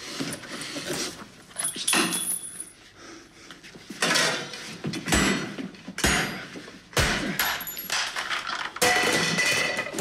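A walk-in chiller's metal door handle is rattled and the door is banged and shoulder-barged over and over: a run of loud thuds and metallic clatters, the heaviest about halfway through, as someone shut inside tries to force it open.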